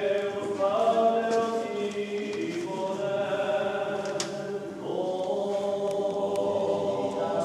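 Choir singing slow, long-held notes that change pitch every second or two.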